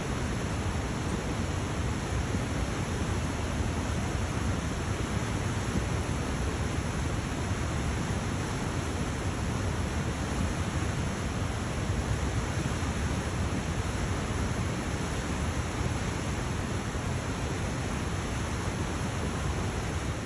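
Flash-flood water rushing down a dry creek bed: a steady, unbroken rushing noise with no letup.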